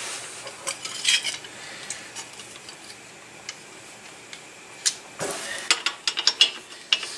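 Metal hand tools and parts clinking and tapping: a few light clicks about a second in, then a quick run of clinks in the last two seconds.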